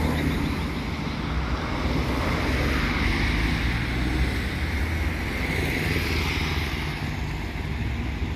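Road traffic on a busy avenue: cars going by, their engine and tyre noise swelling and fading, with a motorcycle approaching near the end.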